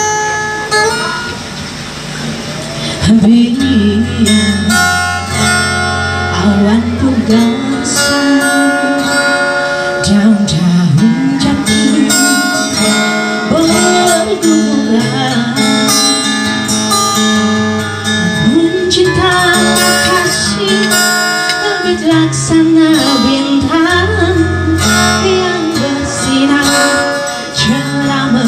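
A woman singing a slow Indonesian pop ballad into a microphone over strummed acoustic guitar, amplified through loudspeakers.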